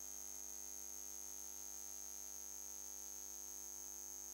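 Faint steady electrical hum and hiss with a thin, high, unchanging tone: the background noise of the broadcast audio with no programme sound.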